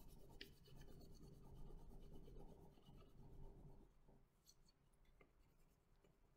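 Faint scratching of a crayon rubbed back and forth across paper while colouring, fading away about four seconds in.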